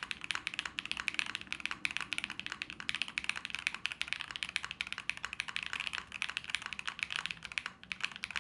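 Continuous fast typing on a Brutal65 v2 65% mechanical keyboard with pre-lubed Pink Robin switches, an aluminium plate and polycarbonate keycaps: a dense stream of sharp key clacks, with a brief pause about three-quarters of a second before the end.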